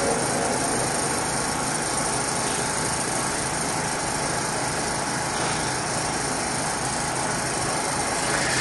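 Steady, even background noise with a faint low hum, with no recitation or speech: the room and sound-system noise of the recording.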